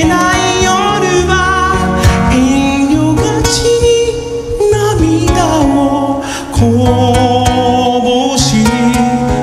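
Music: a male singer's voice over strummed acoustic guitar, in an acoustic live arrangement of a pop ballad.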